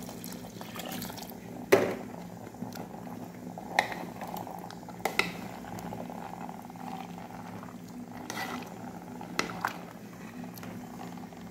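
Beans bubbling in an aluminium pressure-cooker pot on a gas burner, with a metal spoon knocking sharply against the pot several times; the loudest knock comes about two seconds in.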